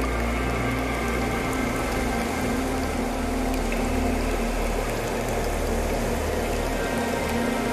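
Steady bubbling, gurgling water with soft sustained tones underneath that change pitch now and then.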